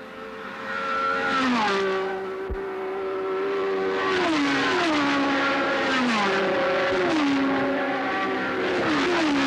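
Open-wheel racing car engines passing one after another at speed, each engine note dropping in pitch as a car goes by, about five times.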